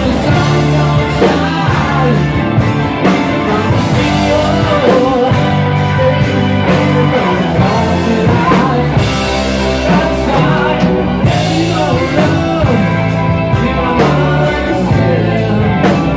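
Live rock band playing: a singer's voice over electric guitar, electric bass and drum kit.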